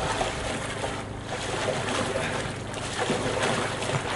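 Water splashing and sloshing as a person scrambles in shallow water beside a kayak, with wind buffeting the microphone.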